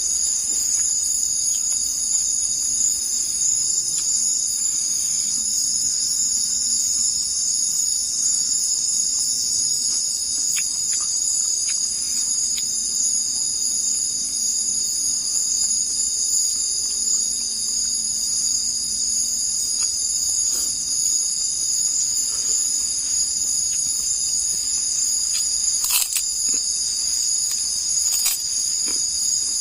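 Steady, loud chorus of forest insects, cricket-like, shrilling continuously at several high pitches. Two sharp clicks sound near the end.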